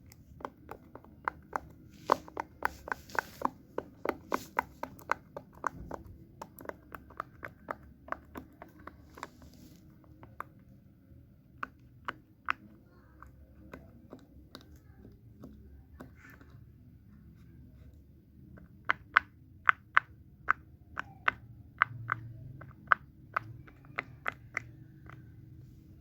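Small plastic fidget toy being clicked by hand: quick runs of sharp clicks, several a second. The clicks thin out and pause in the middle, then come in a fast run again near the end.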